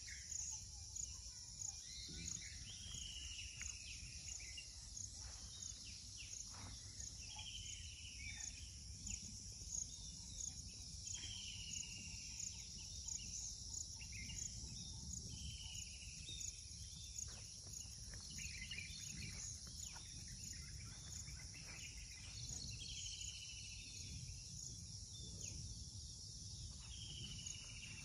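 Faint forest ambience: a steady high-pitched chorus of insects, with a bird repeating a short descending call every few seconds.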